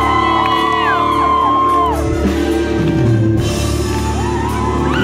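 Live band music playing loud through a concert PA, sustained keyboard-like chords over drums, with the crowd shouting, whooping and singing along over it.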